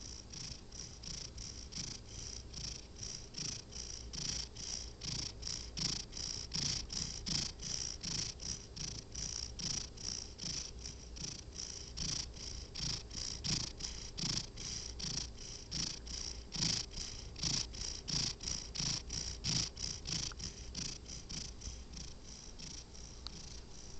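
Sleeping cat snoring, a fast, even, rhythmic rasp that runs on steadily and grows a little fainter near the end.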